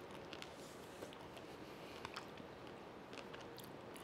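Faint mouth sounds of someone biting into and eating a chocolate-coated ice cream bar: a few soft clicks over quiet room tone.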